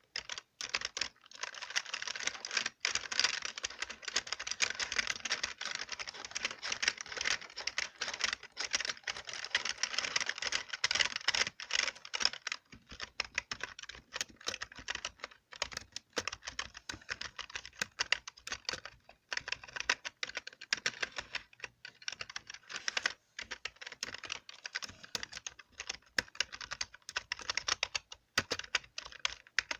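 Computer keyboard being typed and tapped in rapid, continuous clicking runs, with brief pauses now and then.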